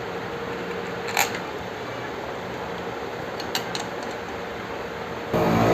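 A few light metal clicks, one sharp click about a second in and two lighter ones later, as bolts are fitted to the scooter engine's magneto cover, over a steady hum. A much louder sound cuts in suddenly at the very end.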